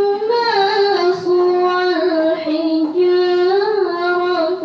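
A girl chanting the Qur'an in the melodic tilawah style into a microphone, holding long notes that bend and turn in ornamented runs.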